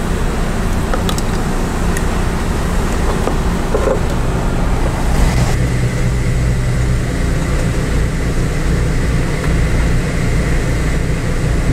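Steady low background rumble, with a few faint short clicks of a hand tool on a battery's negative cable terminal.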